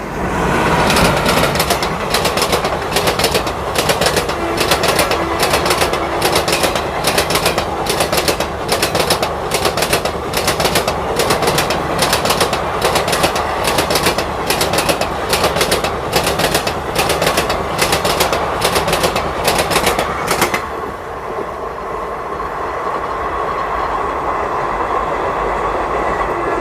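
Passing Indian Railways train of LHB coaches: wheels clattering over the rail joints in a steady rhythm of about two knocks a second. The clatter stops abruptly about twenty seconds in, leaving a steadier rumble, and a horn begins right at the end.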